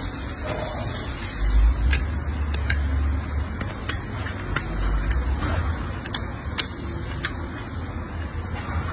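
Close handling noise of hoof work on a shod horse's hoof: a low rumble with scattered sharp clicks, roughly one every half second to second, from the farrier's hands and tool against the hoof and shoe.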